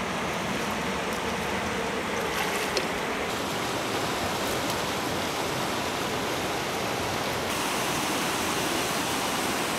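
Steady rush of a river running fast over rocks and through whitewater rapids.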